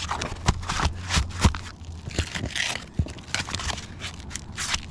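Irregular scraping and crackling with several sharp knocks: someone moving about and handling material on a roof.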